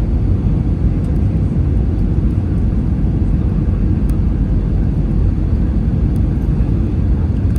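Steady low roar of an Airbus A320's engines and airflow, heard inside the passenger cabin.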